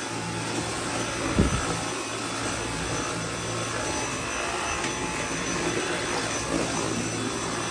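Dyson V8 cordless stick vacuum running steadily, a low hum under an even rush of air, with one short knock about a second and a half in.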